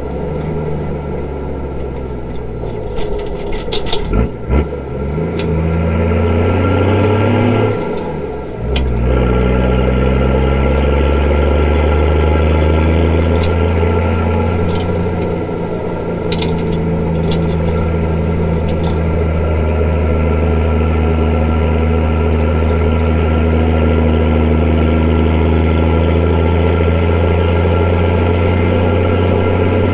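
Straight-piped Nissan TD42 straight-six diesel pulling on the road. Its note climbs, drops sharply at a gear change about eight seconds in, then climbs again and settles into a steady drone. There are a few sharp clicks around three to four seconds in.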